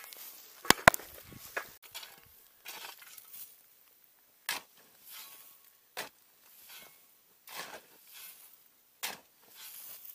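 A steel shovel digging into field soil: sharp strikes about every second and a half, each followed by a brief scrape and fall of earth. Two sharp knocks just under a second in are the loudest.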